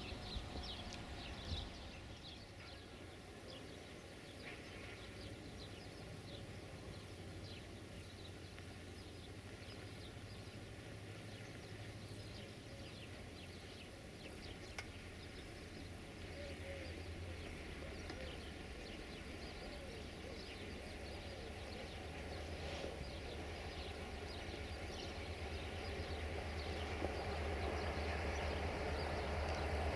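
Birds chirping over outdoor ambience, while the low drone of an approaching CFR Class 65 GM (EMD-engined) diesel-electric locomotive grows steadily louder over the second half.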